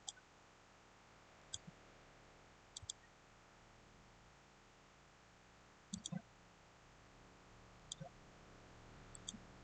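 Computer mouse buttons clicking, some single clicks and some quick double clicks a second or two apart, over a faint steady hiss.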